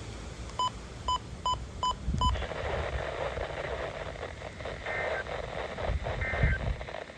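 A radio receiver gives six short electronic beeps in the first two seconds or so, then plays the hiss of an open weather-radio channel. Three faint, brief electronic data bursts come about a second apart in the second half.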